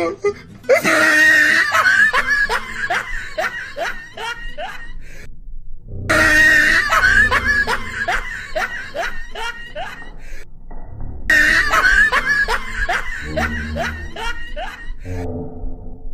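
Loud laughter in three long bursts, each starting high and trailing off into a run of rhythmic ha-ha pulses.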